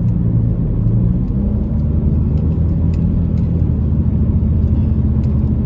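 Car engine and road noise inside the cabin while driving, a steady low rumble with a slight shift in engine pitch about a second and a half in.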